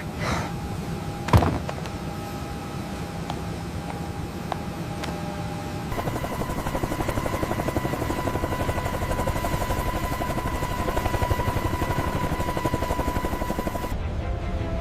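CH-53K King Stallion heavy-lift helicopter running at departure, its rotor beating fast and evenly, with a single sharp knock about a second and a half in. About six seconds in a steady high turbine whine joins the rotor.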